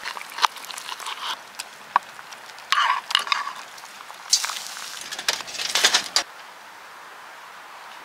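Metal tongs and a knife clicking and scraping against a wooden cutting board and a metal pot as thick pieces of braised pork neck are cut and moved, with a hiss from about four to six seconds in as the meat goes back into the hot pot of kimchi braise over the fire. The sounds stop a little after six seconds.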